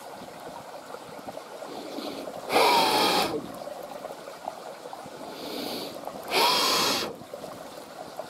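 A person blowing hard twice, each blow lasting under a second and preceded by a quieter breath in, over a steady trickle of river water.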